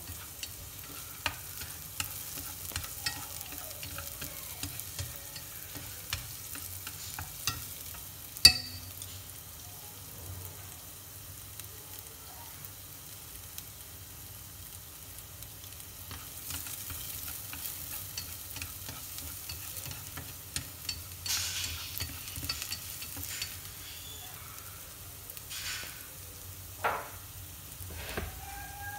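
Minced garlic frying with a faint sizzle in a stainless steel pot. Chopsticks knock against the metal now and then, with one sharp click about eight seconds in.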